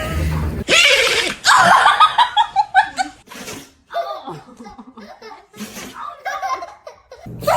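Hearty laughter: a short loud burst about a second in, then a run of quick pulses falling in pitch, followed by scattered chuckles.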